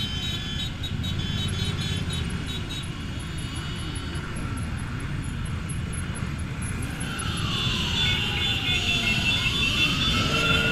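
Many motorcycle engines running together in a slow-moving pack, a steady low rumble with some engines revving. In the last few seconds a siren sweeps down in pitch and then rises again.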